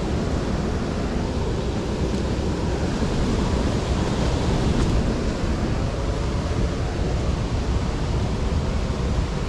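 Steady rushing of river water spilling over a low weir.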